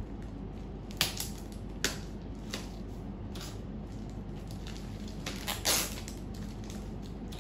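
Plastic packaging crinkling and crackling in short, sharp bursts as a box of dates is cut open with scissors and its plastic wrap pulled off; the loudest crackle comes a little before six seconds in.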